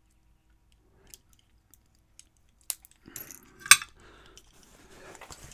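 Small metal lock handled with tools: scattered light clicks, then a sharper cluster of metallic clicks and clinks about three seconds in, with a scratchy rustling behind them.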